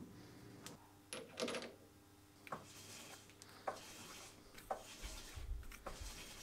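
Light clicks and knocks, roughly one a second, from a metal lathe's four-jaw chuck being turned by hand and its jaws adjusted while the work is set off-centre to cut an eccentric.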